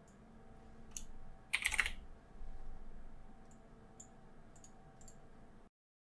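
Computer keyboard and mouse clicks: a few scattered clicks and a short burst of quick key clatter about one and a half seconds in, over a faint steady hum. The sound cuts to dead silence near the end.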